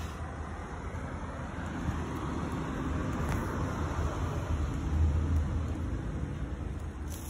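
Road traffic noise, likely a vehicle passing: a steady rushing hum that builds to its loudest about five seconds in and then eases off.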